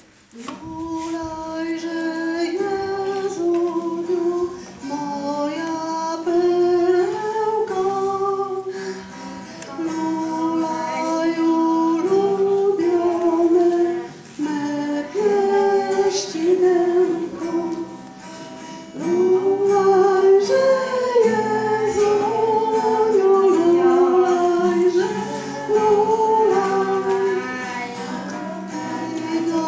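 A woman singing a song to acoustic guitar accompaniment. The singing starts just after the opening and goes on in phrases with short breaks.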